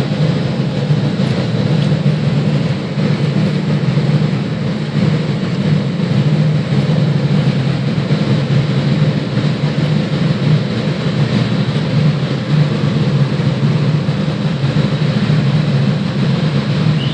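Large mobile crane's diesel engine running steadily under work, heard from inside the operator's cab, with a faint steady high whine above it.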